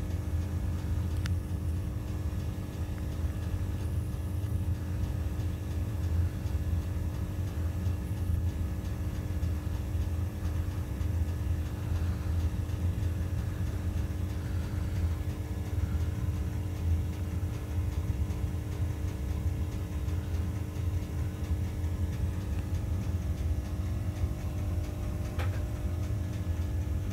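Steady low hum and rumble of an aquarium's air-driven sponge filters and their air pump, with a faint tick near the end.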